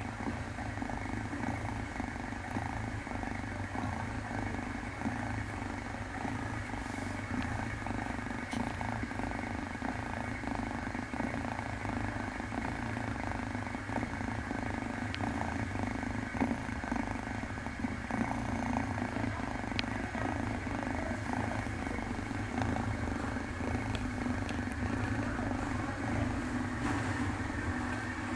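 Grey-and-white kitten purring steadily while being stroked, over a steady background hum.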